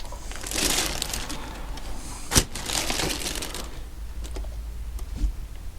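Hands working on a motorcycle engine on the bench: rustling and scraping of parts being handled, with one sharp click or knock about two and a half seconds in.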